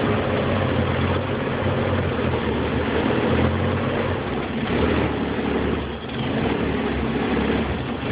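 An engine running at idle on its first start, a steady low drone whose level wavers, dipping briefly about six seconds in.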